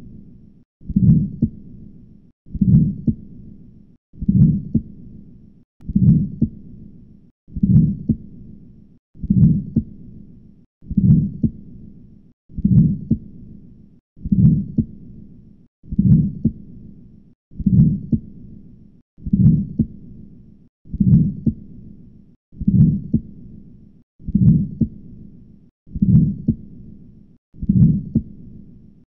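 Heart sounds with a murmur from aortic regurgitation (aortic insufficiency), as heard through a stethoscope. Slow regular beats, about one every 1.7 seconds, each a low thump followed by a fading murmur.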